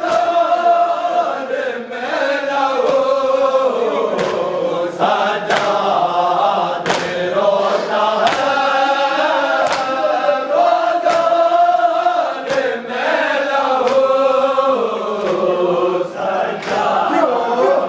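A group of male mourners chanting a noha lament together, with sharp, rhythmic slaps of hands on chests (matam) about every one and a half seconds.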